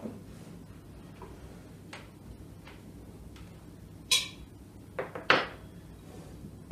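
Tableware being set down on a dining table: a few sharp clinks of plates, glasses and cutlery. One bright, ringing clink comes about four seconds in, and a pair of louder knocks follows about a second later.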